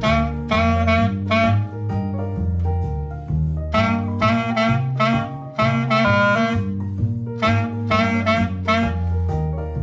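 Jazzy instrumental music: a bass line under short, repeated riffs from a wind instrument, each phrase breaking off after a second or so.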